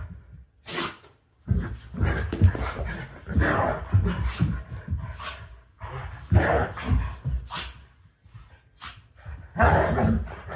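Dobermans play-fighting, barking, with several short, sharp sneezes scattered through the scuffle; dogs sneeze like this as a play signal.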